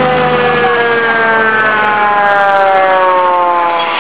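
Fire truck siren wailing with a slow, steady fall in pitch as the truck passes close. A low engine rumble is under it for the first second.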